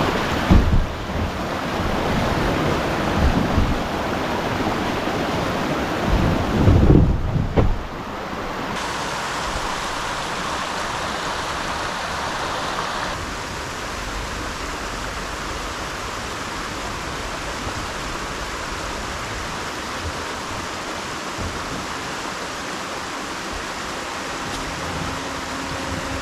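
River water rushing over a low-head dam: a steady, even wash of noise. For the first eight seconds or so, wind rumbles on the microphone over it.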